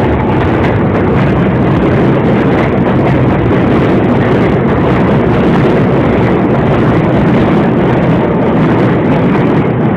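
Loud steady rumble and hiss of an R160B subway train with Siemens propulsion moving alongside the platform.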